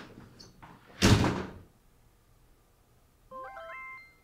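A door slams shut about a second in, one loud thud that dies away quickly. Near the end a short rising run of musical notes plays.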